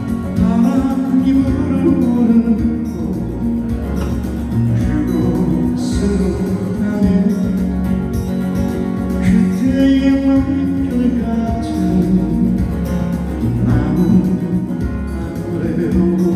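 Instrumental music: acoustic guitar accompaniment under a melody line, the intro of a song.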